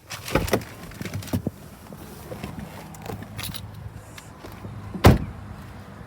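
The Holden Commodore SV6's 3.6-litre V6 idling with a steady low hum, under a few knocks and clicks in the first second and a half and one loud thump about five seconds in.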